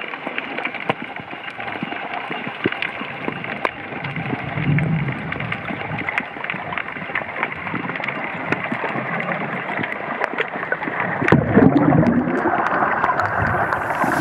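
Underwater ambience through the camera: a steady rushing hiss of water peppered with many faint clicks and crackles. It grows louder with a churning, gurgling rush near the end.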